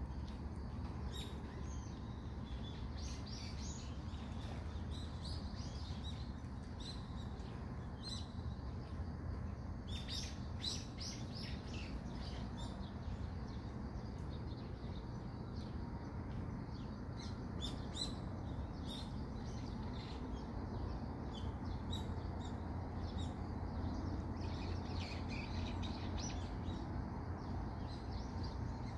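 Small birds chirping and calling in short, scattered notes, busiest in the first dozen seconds and again later, over a steady low background rumble.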